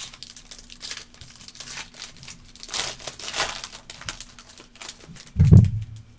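Trading-card pack wrapper being torn open and crinkled, with dense crackling that is strongest in the middle. A single heavy thump comes near the end.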